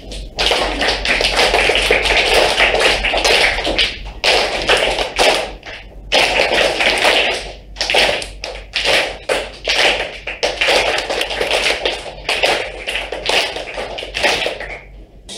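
A class of schoolchildren clapping a rhythm together, a dense clatter of many hands that comes in phrases of about two seconds with short breaks between them.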